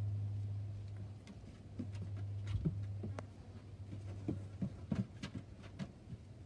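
A dog's claws and paws clicking and tapping irregularly on a hard plastic raised platform as it turns around on it. Under the first half runs a low steady hum that fades out.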